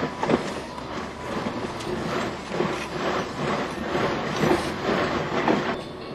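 Inside the cabin of an off-road vehicle crawling over rough rock: the body, suspension and loose gear rattle and knock irregularly over a steady mechanical rumble. The knocking eases near the end.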